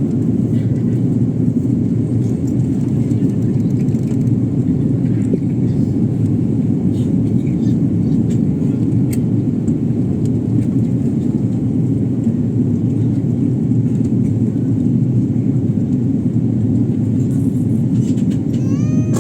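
Steady low drone of an airliner cabin in flight: engine and airflow noise heard from inside the passenger cabin.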